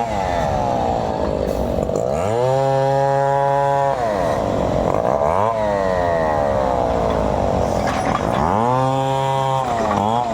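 Chainsaw engine revving up to full throttle and holding there for a second or two, then dropping back, twice. Between the two runs the pitch slides up and down.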